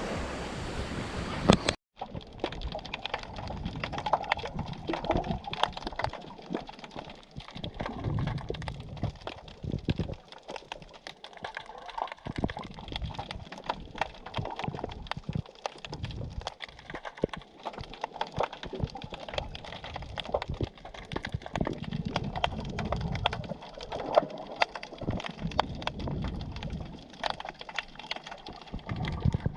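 Underwater sound while snorkelling in the sea: a dense, irregular crackle of sharp clicks, with uneven low water sloshing. It follows a loud opening that cuts off abruptly about two seconds in.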